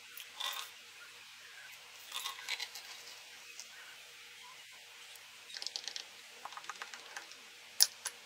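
Faint crackling and light clicks in short scattered bursts as cotton candy is turned into a foamy drink and stirred in glass mugs, with a couple of sharper taps near the end.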